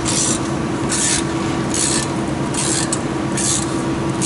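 Ratchet wrench being swung back and forth to tighten a bolt: short rasping runs of clicks, one about every second, repeated steadily over a low steady hum.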